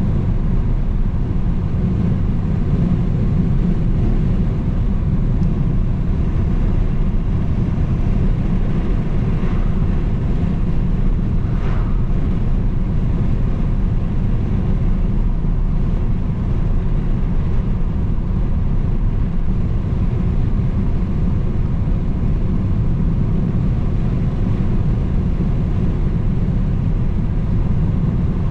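Car driving at a steady speed: a constant low rumble of road and engine noise.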